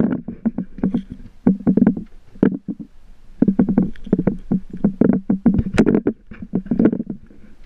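Water slapping and knocking against the hull of a small fishing boat rocking at sea, in irregular clusters of sharp slaps with a brief lull about three seconds in.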